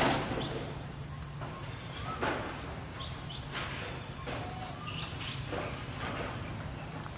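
A few short, scattered chirping animal calls over steady outdoor background noise, with occasional brief rustles.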